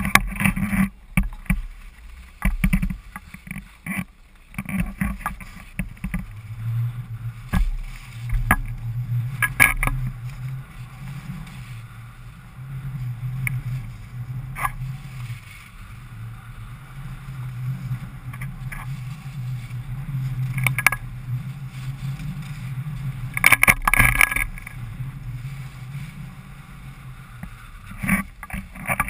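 Skis sliding and scraping over packed snow on a downhill run, under a steady low rumble of rushing air on the body-worn camera. Scattered sharp knocks and clicks come through, with the loudest cluster about five seconds before the end.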